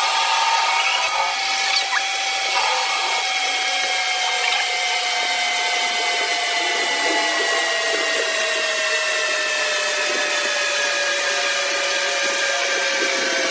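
Lathe turning ash wood, the tool cutting into the spinning workpiece: a steady whine over a hiss, the whine slowly falling in pitch.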